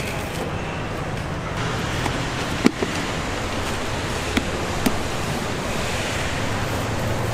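Steady rushing background noise of a busy market, with a few sharp knocks in the middle.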